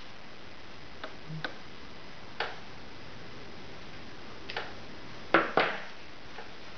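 Light, sparse clicks and taps of small screws and a screwdriver on a laptop's plastic case, with two louder clicks close together about five and a half seconds in, over a steady hiss.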